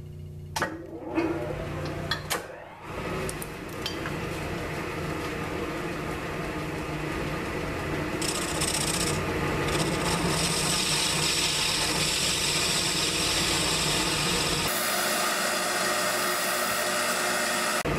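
1942 South Bend lathe with its three-jaw chuck spinning while a lathe tool faces the end of the part, after a few clicks and knocks near the start. A hiss joins the steady running from about eight seconds in. About fifteen seconds in, the sound turns thinner and hissier.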